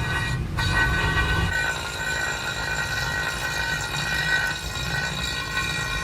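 Metalworking machine running with a steady metallic squeal of several high tones over a low rumble; the rumble eases about a second and a half in.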